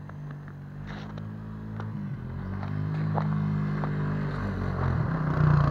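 Quad bike (ATV) engine running as it approaches, growing steadily louder, its pitch rising and dipping a little with the throttle.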